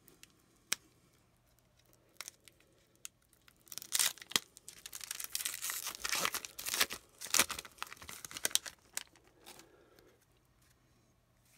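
A trading card pack's wrapper being torn open and crinkled by hand: a few light clicks, then about four seconds in a run of crackling rips and crinkles lasting some five seconds.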